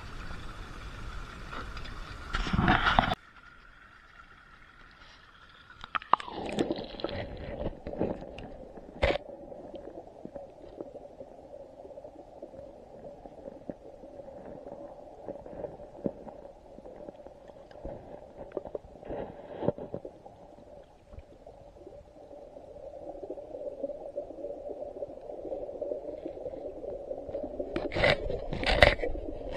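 Creek water heard first in open air. About three seconds in, the camera goes under the surface and the sound turns to a muffled, steady underwater rumble. Scattered knocks and clicks of the camera against rocks and stones run through it, with a cluster of louder knocks near the end.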